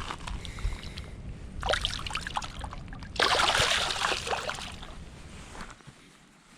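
River water splashing and sloshing, with a sudden louder splash about three seconds in that dies away over a couple of seconds.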